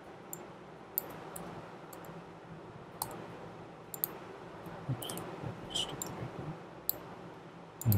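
Computer mouse clicking, scattered single clicks every second or so, over a faint steady hiss.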